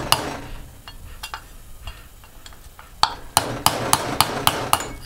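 Hammer striking a punch to drive the bushing out of an AC fan motor's aluminum end bell: a sharp metallic strike at the start and a few lighter taps, then a quick run of sharp strikes, about three or four a second, over the last two seconds.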